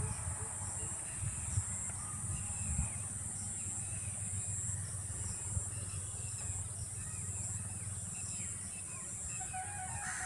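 Rural field ambience: a steady high-pitched insect drone with a faint pulsing beat, scattered small bird chirps and a low rumble of wind on the microphone. A bird starts a drawn-out call about nine seconds in.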